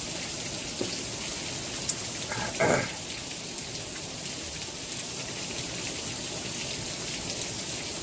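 Steady patter of water falling from a pavilion roof like rain, from water deliberately run onto the roof to imitate rainfall. A brief vocal sound about two and a half seconds in.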